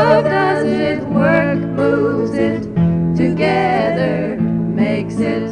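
Folk song's closing bars: voices singing long, held notes over acoustic guitar, the music beginning to fade near the end.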